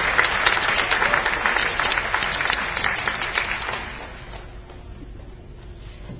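Audience applause, many hands clapping, dying away about four seconds in to a low crowd murmur.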